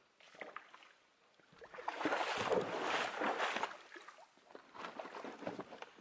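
Footsteps scuffing and crunching on the stony bank of a waterfall's plunge pool: irregular crackly steps, loudest for about a second and a half in the middle, then a few lighter ones.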